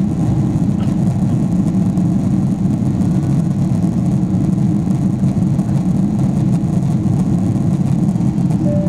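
Steady low drone of a Boeing 777-300ER's GE90-115B jet engines and rushing air. It stays even throughout, with no rise or fall in pitch.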